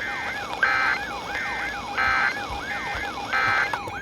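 Electronic siren-like alert sound: a tone falling in pitch over and over, about two and a half times a second, with short bursts of a higher beeping tone laid over it.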